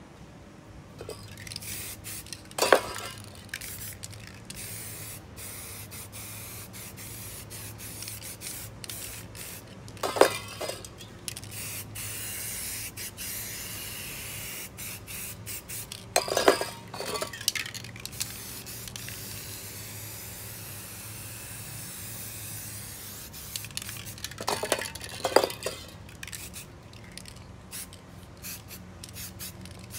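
Aerosol spray paint can hissing in long bursts as paint is sprayed onto a canvas. Several sharp knocks, louder than the hiss, are spread through it.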